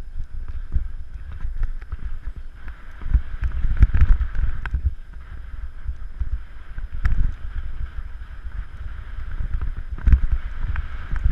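Wind buffeting the microphone, a loud uneven low rumble, with scattered knocks and rattles throughout.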